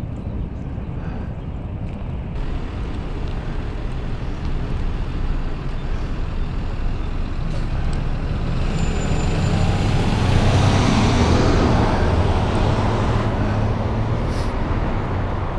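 Road traffic: a steady rumble with a vehicle going past, growing louder to a peak about ten to twelve seconds in and then fading.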